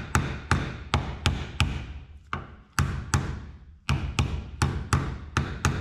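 Hammer tapping an old bearing used as a driver, seating a new press-fit ball bearing into a John Deere mower deck spindle housing: sharp repeated metal taps, about three a second with a couple of short pauses. The blows are worked around the bearing's edge to keep it going in straight, and it is going in easily.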